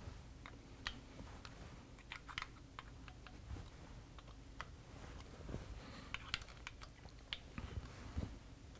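Faint, irregular metallic clicks of a 3/16-inch Allen wrench working the cap screws loose on a Harley-Davidson Twin Cam's cam cover, with the screws and wrench being handled between turns.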